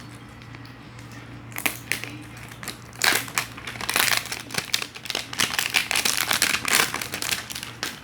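Plastic packaging of a new phone box crinkling and rustling as it is handled and opened: irregular crackly bursts, sparse at first and dense from about three seconds in.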